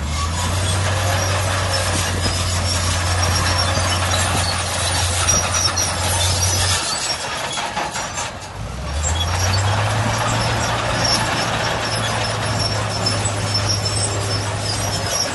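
Heavy diesel earthmoving machinery running hard in sand, a steady low engine note over a constant mechanical rattle with faint high squeaks. The engine drops away about seven seconds in, then rises back up to a steady run about two seconds later.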